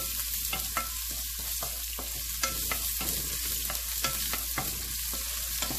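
Strips of ginger sizzling in hot oil in a nonstick pan: a steady frying hiss with scattered small pops. A wooden spatula stirring them scrapes and taps against the pan.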